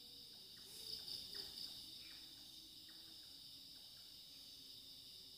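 Steady high-pitched chorus of night insects, faint, with a slight swell about a second in.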